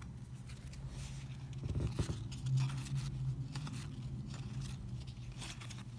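Baseball cards being flipped and slid through by hand: a string of dry papery scrapes and flicks.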